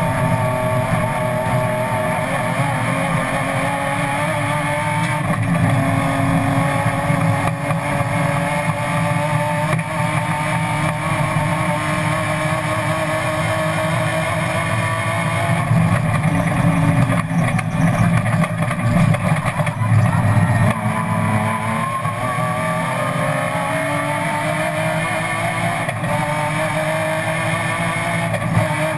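BMW M3 race car engine running hard at high revs, heard from inside the stripped cabin over a constant low road and drivetrain rumble. The pitch climbs steadily through the gears, drops about two-thirds of the way through as the driver lifts, then climbs again.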